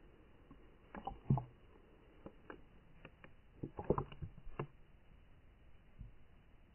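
Scattered muffled clicks and knocks heard through a submerged camera, in two clusters about a second in and about four seconds in, with one soft thump near the end.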